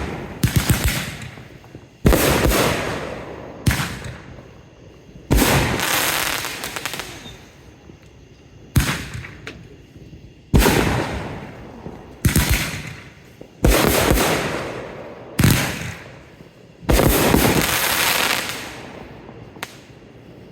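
Fireworks going off one after another, about ten sharp bangs spaced a second or two apart, each trailing off in crackle. The last, near the end, crackles longest.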